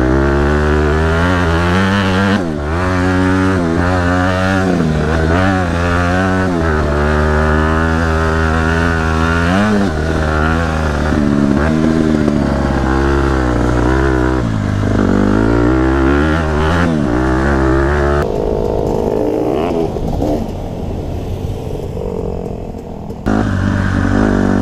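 Dirt bike engine revving up and down again and again as it is ridden hard. About 18 seconds in it drops to a quieter, duller sound for several seconds, then rises again near the end.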